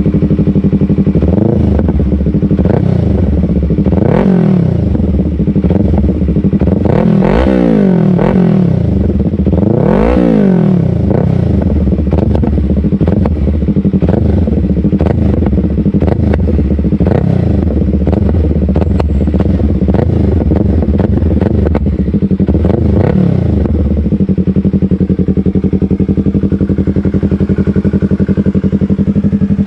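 Yamaha YZF-R3's 321 cc parallel-twin engine through an M4 slip-on exhaust, held at idle and revved in a string of throttle blips, the highest revs coming about a quarter and a third of the way in. It then settles back to a steady idle for the last few seconds.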